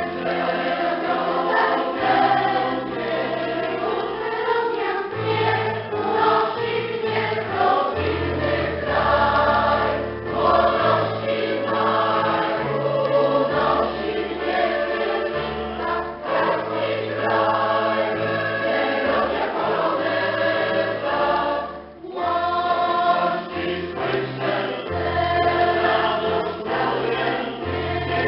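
Mixed choir of women's and men's voices singing in parts, with one short break between phrases about three-quarters of the way through.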